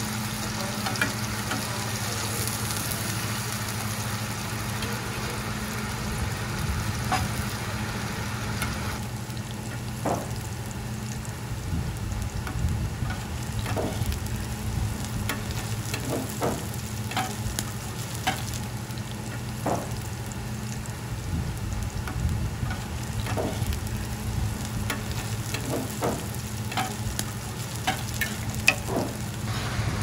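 Seafood and green onion pancake (haemul pajeon) sizzling as it fries in oil on a griddle, over a steady low hum. Short knocks and clicks come every second or two.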